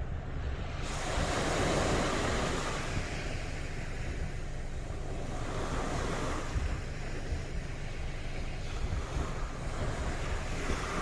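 Sea waves breaking and washing up on a beach, the surf swelling a few times as waves come in. Wind buffets the microphone with a low rumble underneath.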